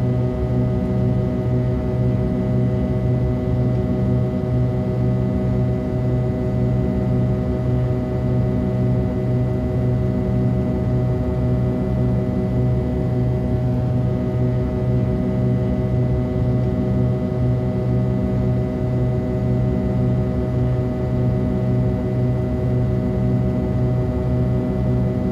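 Airliner's underwing turbofan engine heard from a window seat in the cabin while climbing: a steady drone with a deep hum, several held tones above it and a slight regular throb.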